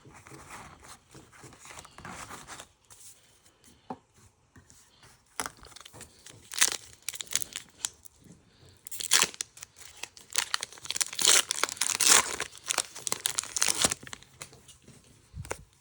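Foil trading-card booster pack wrapper crinkling and being torn open, in irregular crackly bursts that are faint at first and loudest in the second half.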